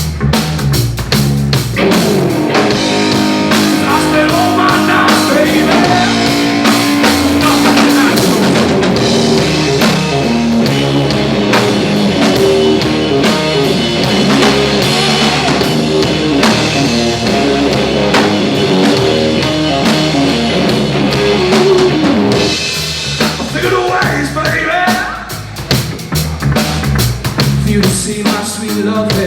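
Blues-rock band playing live: electric guitar, bass and drum kit at full volume, easing off slightly near the end.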